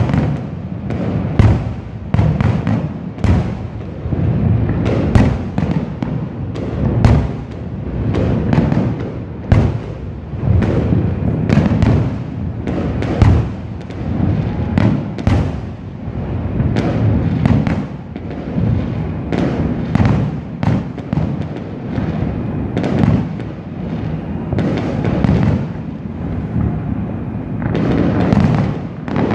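Aerial firework shells bursting one after another, a long run of sharp bangs about one to two a second with a low rumble between them, growing denser and more continuous near the end.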